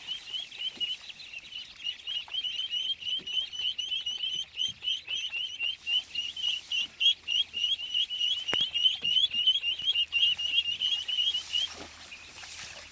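Mallard ducklings peeping: a rapid, continuous stream of short high chirps, about four or five a second, that stops near the end.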